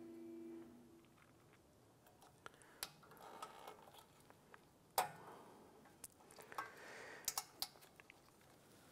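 Scattered light metal clicks and ticks of needle-nose pliers on a parking brake shoe hold-down spring and pin being fitted on a drum-in-hat parking brake. The loudest click comes about five seconds in, with a quick run of clicks near the end.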